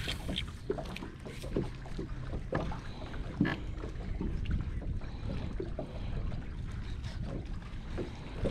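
Water lapping against a small fishing boat's hull, with a steady low rumble of wind on the microphone and scattered small ticks and splashes.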